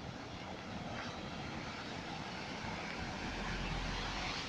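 Steady rain and water running over a flooded street, a dense even hiss that slowly grows louder, with a low rumble coming in about three seconds in.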